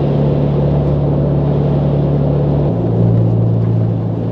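2023 Ford Bronco Heritage's 2.3-litre turbocharged four-cylinder and road noise, heard from inside the cabin while cruising on a paved road: a steady low drone whose pitch drops abruptly about two and a half seconds in.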